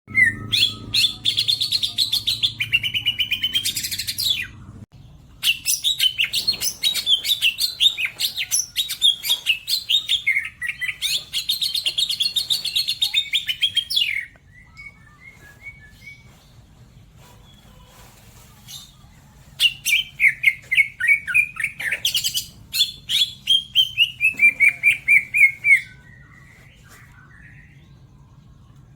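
Cucak ijo (green leafbird) singing loud, long phrases of rapid, fast-repeated notes. There is a pause of about five seconds midway, and the later phrases slide downward in pitch.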